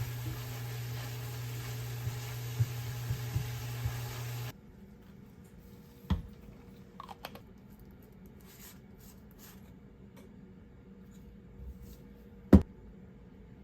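A steady hum with a few light clicks, which cuts off about four and a half seconds in. After that it is quieter, with scattered light clicks and two sharp knocks, the louder one near the end.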